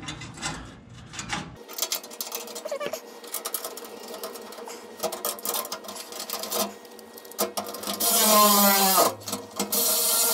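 Light clicks and rattles of the skid plate's access flap and its bolts being handled, then about eight seconds in a cordless power driver whirs as its motor spins up to run a bolt into the skid plate, running again briefly near the end.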